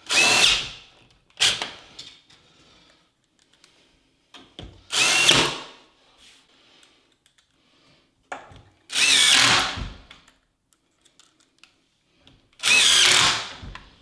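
Cordless drill-driver driving wood screws into a door hinge, in four runs of about a second each, with two shorter blips between them.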